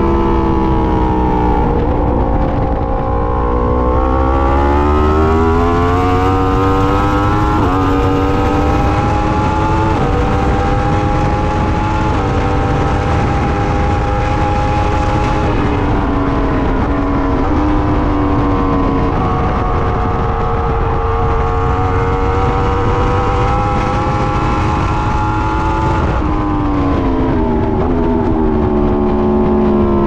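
Yamaha R1 inline-four engine at high revs heard from on board at speed, its note climbing and stepping as it pulls through the gears, then falling away near the end as the bike slows. A steady rush of wind runs underneath.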